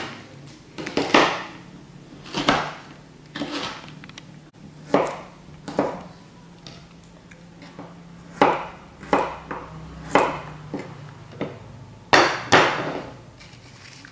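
Kitchen knife chopping red chillies and garlic cloves on a plastic cutting board: about a dozen separate knocks, roughly one a second, unevenly spaced.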